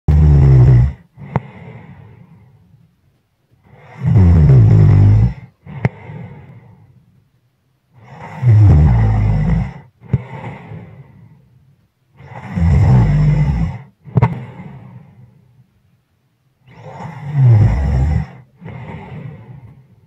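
A person sleeping and snoring: a loud, low, rattling snore about every four seconds, five in all, each followed by a softer, airy breath that fades away.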